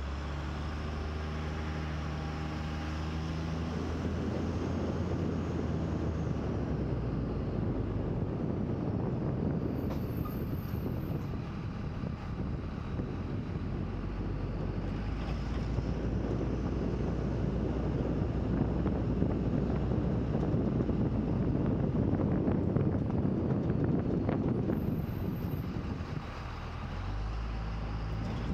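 A vehicle engine idling with a steady low hum. It then gives way to a long rushing stretch of wind and motion noise, and a steady idle returns near the end.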